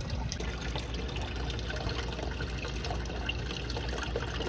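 Water running steadily across a Miller table's flat green plate and pouring off its lower edge into the tote of a recirculating setup below, a continuous trickling splash.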